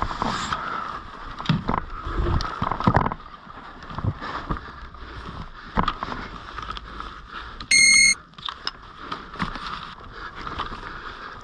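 One short, high electronic beep about eight seconds in, the loudest sound, over scattered knocks and clatter.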